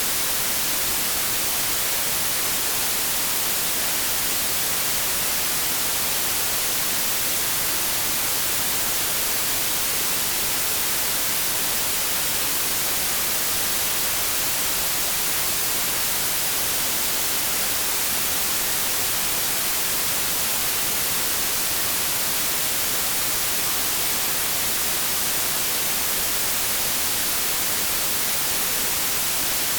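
Steady electronic white noise, an even hiss that is strongest in the treble and thin in the bass, with no changes.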